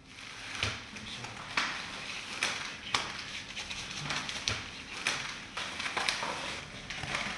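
Clear plastic cling film crinkling and crackling as it is pulled and stretched around a person's body, with irregular sharp crackles.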